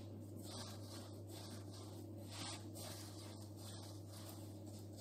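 Faint, soft rubbing and brushing of hands rolling a log of dough through a coating of sugar and ground almond skins on a granite counter, a swish about once a second, over a steady low hum.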